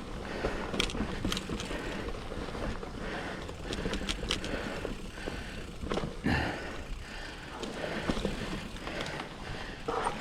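2007 Cannondale Rush mountain bike being ridden along a dirt trail: tyres rolling over the ground, with frequent clicks, knocks and rattles from the bike over bumps.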